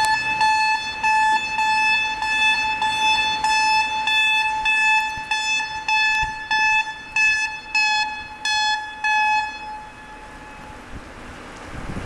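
Blasting warning horn sounding a long run of short toots, the warning that a rock blast is about to be fired. The toots stop about two-thirds of the way through, leaving only wind noise.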